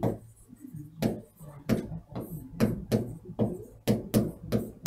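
Marker pen on a whiteboard as words are written: an irregular series of short clicks and scrapes from the pen strokes.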